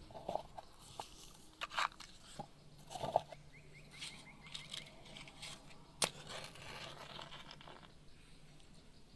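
Irregular crunches and tearing sounds of fresh corn ears being handled, with a sharper snap about six seconds in. Faint chirping of insects or birds underneath.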